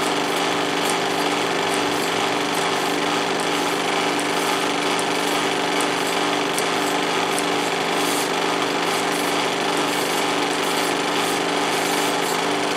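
16mm film projector running steadily: its motor and film-advance mechanism make a continuous mechanical noise with a steady hum.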